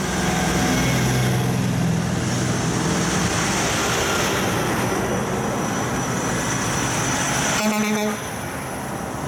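Heavy diesel trucks driving past close by: engine drone and tyre noise, loudest in the first few seconds as a truck goes by. A short horn toot sounds near the end.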